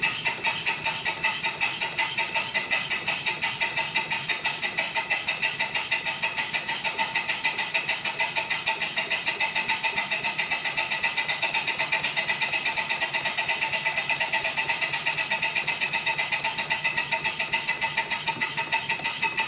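Deming water pump converted to a steam engine, turned over by a belt from an electric motor, its eccentrics, valve linkage and pins clattering in a fast, even metallic rhythm of several clacks a second. It is being run on the belt to break in the new linkage and lap the valves in.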